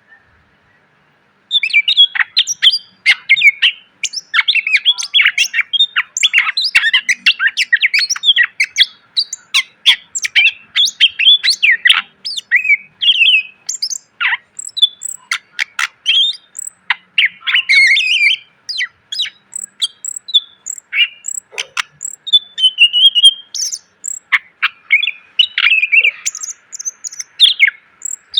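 Cucak ijo (green leafbird) singing a fast, dense, varied song of chirps, trills and whistled notes, packed with mimicked phrases; it starts about a second and a half in and runs on without pause.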